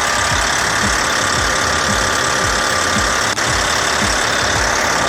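Caterpillar D8T bulldozer's diesel engine running steadily at idle, with a steady hiss and a thin steady whine over it, while the air-conditioning compressor's clutch is engaged and the compressor is running after the clutch protection module has been bypassed.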